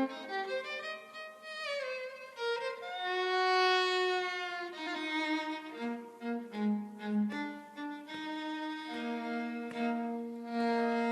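A violin playing a slow melodic solo over lower sustained notes, with a wavering vibrato on a long held note partway through.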